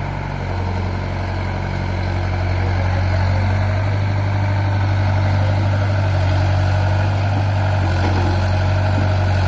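Excavator's diesel engine running steadily with a low hum, getting somewhat louder about two to three seconds in.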